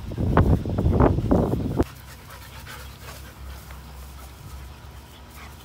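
Dogs play-fighting: loud, irregular scuffling and rustling that stops abruptly about two seconds in, followed by quieter dog panting.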